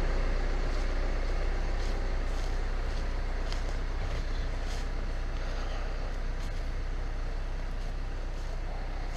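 CAT 924F wheel loader's diesel engine idling steadily, slowly getting quieter, with a few faint clicks.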